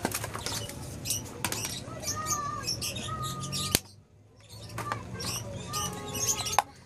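Small clicks and knocks of plastic Play-Doh tubs and toys being handled on a table, with a few short high chirps. A sharp click about four seconds in is followed by a brief hush.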